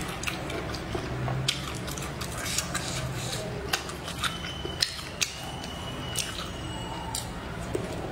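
Close-miked chewing of grilled pork sausage, with wet mouth smacks and sharp clicks at irregular intervals.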